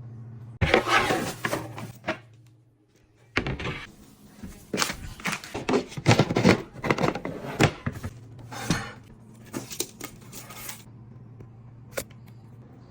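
Things being handled during an unboxing: irregular rustling and clattering with sharp knocks, a single knock near the end, and a steady low hum in the quieter moments.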